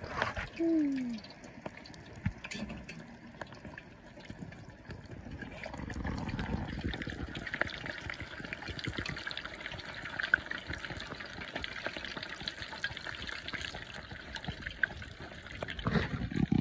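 Hot oil in a cast iron Dutch oven sizzling and crackling around a battered Monte Cristo sandwich as it deep-fries, getting louder about six seconds in. A short falling tone sounds less than a second in.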